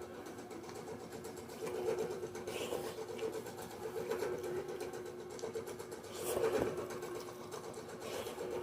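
Steady hum of a small motor running, with a few faint knocks.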